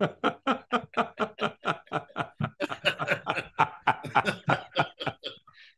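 A man laughing hard: a long unbroken run of short 'ha' pulses, about five a second, that fades near the end.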